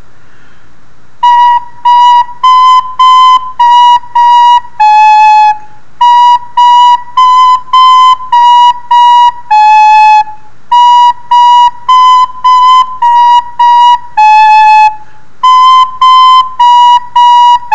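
A wooden recorder playing a simple beginner's tune slowly, in short detached notes that step among three neighbouring notes, in four short phrases with brief pauses between them; the first notes come about a second in.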